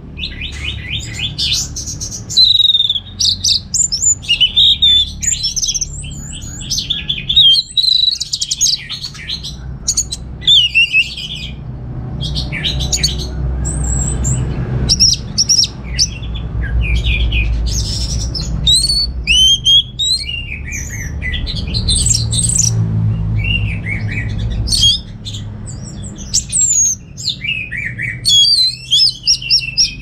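Orange-headed thrush (anis merah) singing: a continuous run of quick, varied whistled phrases and chatters, many sliding up or down in pitch.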